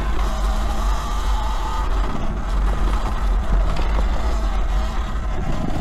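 E-Ride Pro SS 72-volt electric dirt bike ridden along a trail: a steady electric motor whine that wavers up and down with speed, over a heavy low rumble of wind on the microphone.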